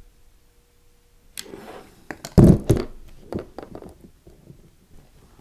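Handling noise of soldering wires in a plastic soldering clip on a workbench: a faint steady hum for the first second or so, then a run of clicks and knocks with a heavy thump about two and a half seconds in.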